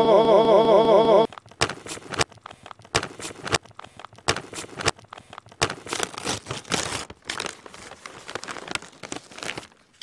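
A plastic tortilla chip bag being pulled open and crinkled, with irregular crackling that goes on for several seconds. Before it, for about the first second, a warbling electronic tone plays and then stops.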